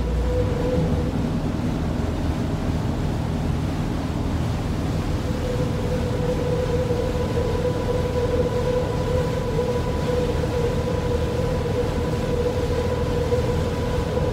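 Steady mechanical rumble with a constant mid-pitched hum, as of a running vehicle or motor.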